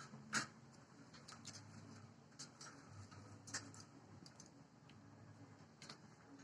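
Faint, irregular light clicks and taps, a dozen or so, the sharpest about half a second in, over a low steady hum.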